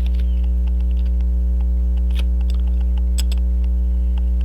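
Loud steady electrical mains hum with evenly spaced overtones, with faint scattered clicks of small metal tools on a pocket watch movement.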